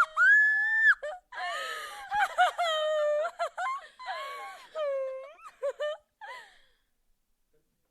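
A woman's crazed, manic laughter. It opens with a long, high shriek, then breaks into quick pulsing laughs that fall in pitch and die away about six and a half seconds in.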